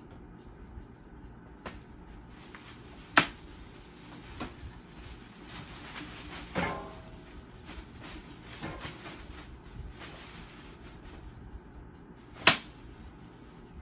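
Vacuum cleaner parts being handled and cleaned: two sharp knocks, one about three seconds in and one near the end, with a short rattling scrape between them and a few fainter clicks.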